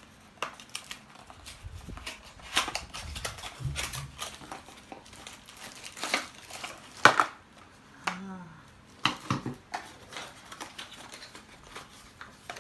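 Hands unpacking the parts of a ring light kit: plastic packaging rustling and crinkling, with irregular clicks and knocks as pieces are handled and set down, the loudest knock about seven seconds in.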